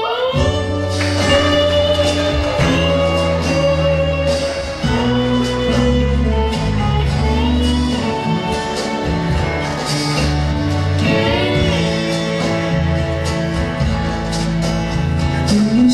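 Instrumental intro of a slow country ballad: long held notes over a steady low accompaniment, some notes sliding up into pitch.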